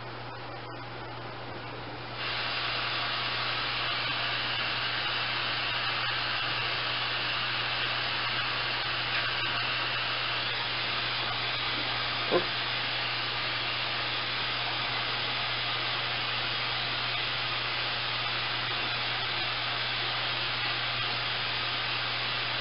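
Radio receiver static: a steady hiss of an empty channel that switches on suddenly about two seconds in, as when the squelch opens with no signal on the frequency yet. It runs over a low steady hum, with a single sharp click about halfway through.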